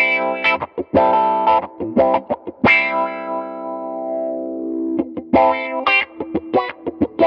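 Electric guitar chords played through a Mu-Tron Micro-Tron IV envelope filter in bandpass mode, the filter swept by a Mission Engineering EP1 expression pedal on its control-voltage input, giving a wah-wah. Short rhythmic chord stabs, then one chord held for about two seconds whose tone slides darker as it fades.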